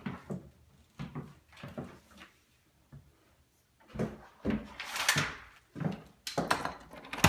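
A door with a latch being opened and closed, with sudden clicks and knocks from about four seconds in, a brief swish in between and the loudest knock near the end.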